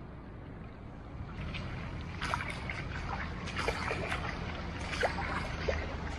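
Boots splashing through shallow floodwater, one splash after another, starting about a second in.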